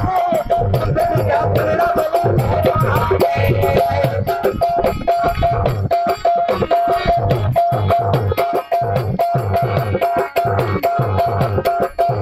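Live devotional music: a harmonium repeating a short note over a steady drum beat, with rattling percussion keeping time.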